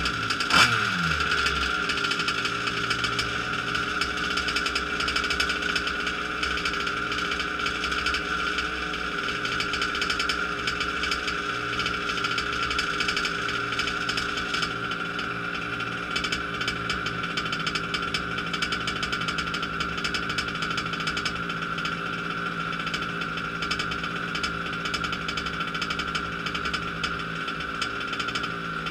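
Losi 5ive-T's modified 29cc two-stroke petrol engine on its first run. It revs briefly as it catches, drops back within about a second, then idles steadily.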